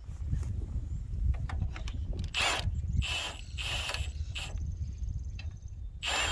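Impact wrench hammering in several short bursts, starting about two seconds in, working a bolt loose.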